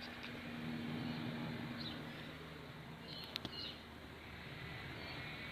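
Honeybee swarm humming, the hum swelling about a second in as bees fly close, with a few short bird chirps and one sharp click a little past the middle.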